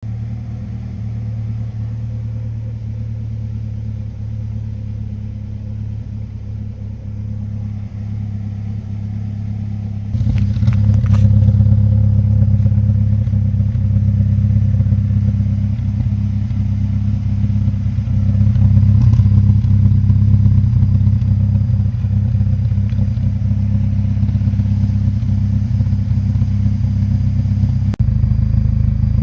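Mazdaspeed3's 2.3-litre turbocharged four-cylinder engine idling steadily with a slightly rough idle. The sound gets louder about ten seconds in, with a brief clatter at that point.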